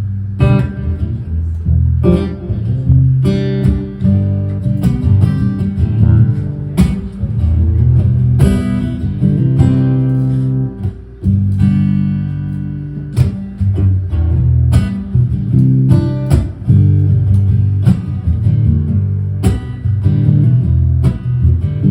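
Acoustic guitar strumming chords: the instrumental introduction to the song, played at a steady rhythm with a strong low end.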